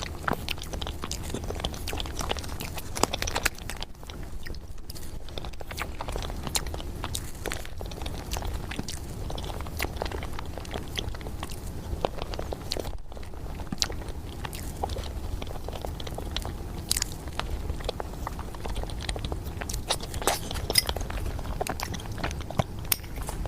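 Close-miked mukbang eating of chocolate mousse cake: chewing and biting with many short, sharp clicks and crunches, over a steady low hum.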